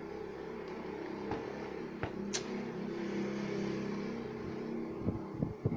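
A steady machine hum made of several held pitched tones, swelling a little toward the middle, with a few faint clicks.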